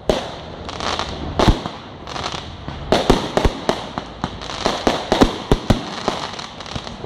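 Fireworks display: aerial shells bursting in an irregular string of sharp bangs, with quick clusters of reports a few seconds in and a crackling haze between them.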